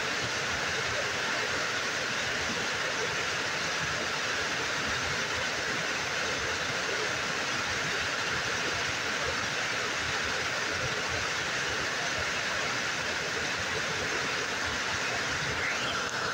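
Steady rush of a small waterfall pouring over a rock ledge into a pool.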